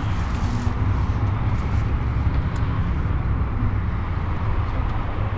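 Routemaster double-decker bus's diesel engine running steadily at road speed, with road and wind noise, heard from inside the upper deck.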